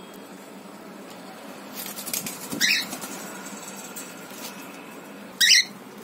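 Lutino cockatiel giving two short, sharp chirps, one about two and a half seconds in and a louder one near the end. Just before the first chirp there is a flurry of scratching and rustling clicks.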